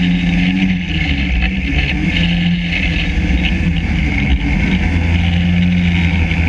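Yamaha SRV 540 snowmobile's two-stroke engine running steadily, its pitch dipping briefly about a second in before picking up again.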